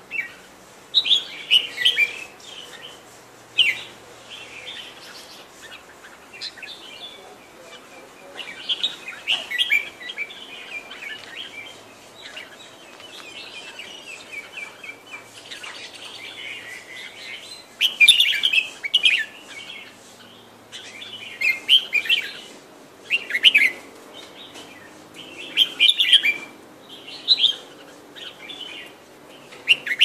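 Caged red-whiskered bulbuls singing: short, loud chirping phrases every second or two, with softer twittering between them.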